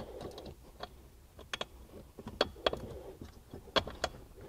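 Irregular sharp clicks and knocks of hard plastic and metal parts as a car seat and its wiring are handled and set into place, about half a dozen in all, the loudest a little past halfway.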